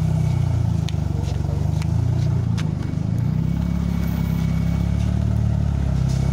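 A large vehicle's engine idling close by as a steady low rumble, with a few light clicks in the first three seconds.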